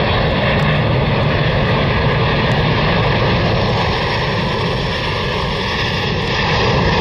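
Jet noise from a U.S. Air Force C-17 Globemaster III's four turbofan engines as it flies low on approach with its landing gear down: a loud, steady rush, deepest in the low end.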